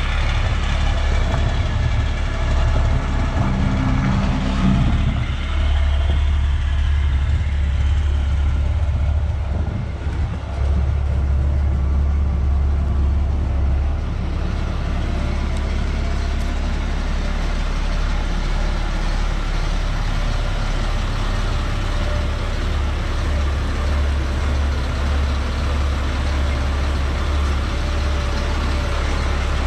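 2006 Ford F750 medium-duty truck's diesel engine idling with a steady low rumble.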